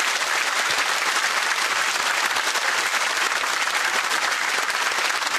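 Studio audience applauding, a dense, steady clapping of many hands.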